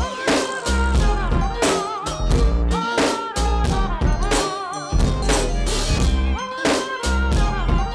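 Background music with a steady drum beat, deep bass and a wavering lead melody.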